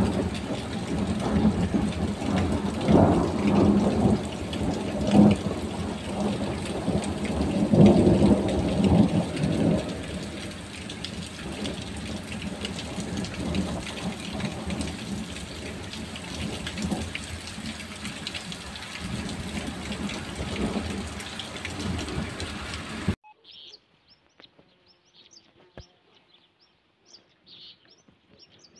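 Heavy summer rain pouring onto a tiled square, with rumbles of thunder in the first ten seconds. About 23 seconds in it cuts off suddenly to quiet with faint bird chirps.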